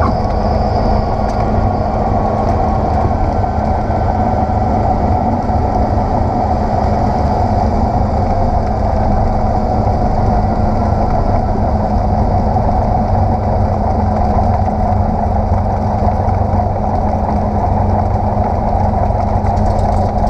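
Cessna 172SP's four-cylinder Lycoming engine and propeller running steadily at low power during the landing rollout, heard from inside the cabin.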